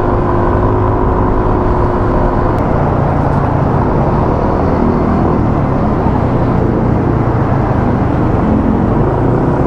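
Steady rush of wind and motor scooter engine noise on a moving ride, picked up by the rider's own microphone; a faint steady engine tone fades out about two and a half seconds in.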